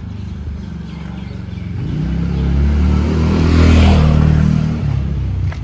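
A motor vehicle drives past close by. Its engine grows louder to a peak nearly four seconds in, then fades.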